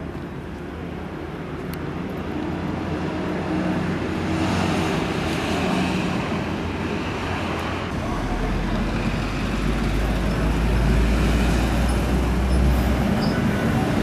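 Street traffic running past, growing steadily louder, with the deep rumble of a heavy vehicle going by for several seconds past the middle.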